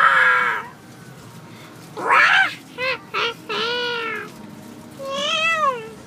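A young girl's high-pitched wordless vocal calls: a held cry at the start, then five short calls that rise and fall in pitch, the fourth one longer.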